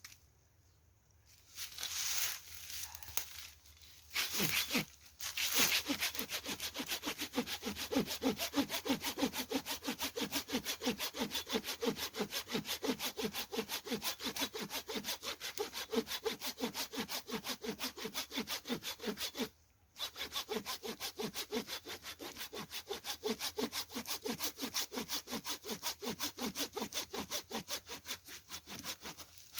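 Hand saw cutting through wood, a long run of fast, even back-and-forth strokes with a short break about two-thirds of the way in, after a few scraping starts.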